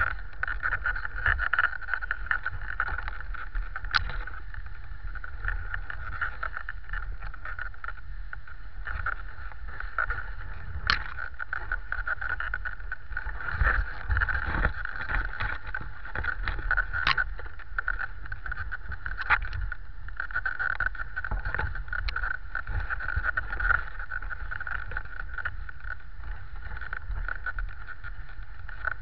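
Dog sled gliding over snow behind a running four-dog team: a steady hiss of the runners with a low rumble underneath, and a handful of short sharp knocks from the sled.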